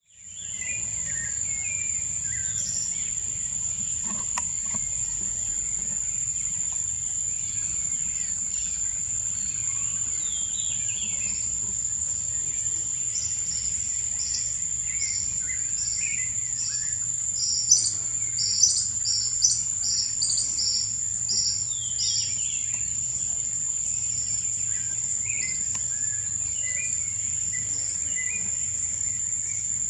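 Birds chirping and calling over a steady, high-pitched insect drone. About halfway through, a run of short, sharp high notes, about two a second, brings the loudest moments.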